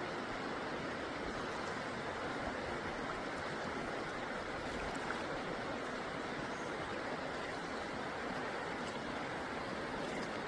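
Steady rushing of a flowing river, an even noise with no distinct events.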